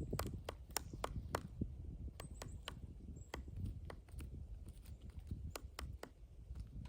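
Pileated woodpecker pecking into a pine trunk: sharp, irregular knocks of bill on wood, coming quickly in the first second and a half, then more scattered. A low rumble runs underneath.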